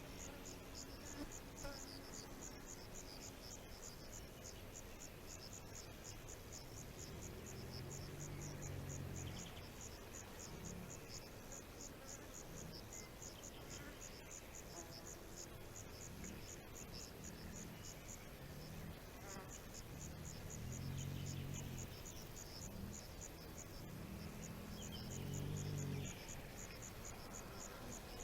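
Insects, cricket-like, chirping in a rapid, even high-pitched pulse that pauses briefly twice. A low pitched sound swells and fades three times underneath.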